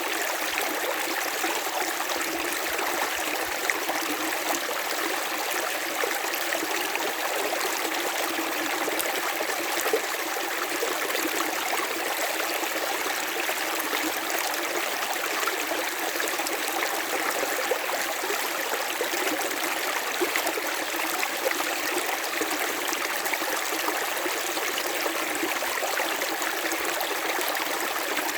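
River water running steadily over stones, a continuous rushing and babbling with small splashes throughout.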